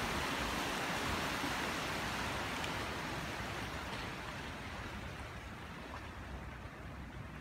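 Ocean surf washing over rocks below a cliff: a steady rushing hiss that slowly fades and dulls.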